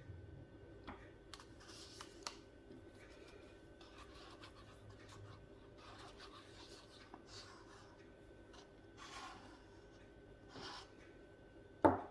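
Faint scraping and rubbing of a mixing cup and stirring stick as eco casting mix is poured and scraped into silicone moulds, with a few light clicks and one sharp click just before the end.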